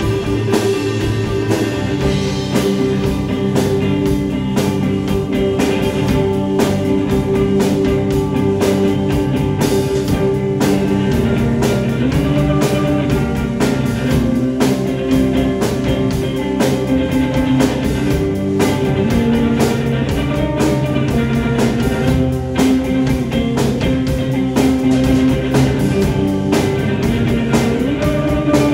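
Instrumental rock band playing live: electric guitars holding long, droning notes that bend in pitch in the middle stretch, over a drum kit with busy cymbals. No singing.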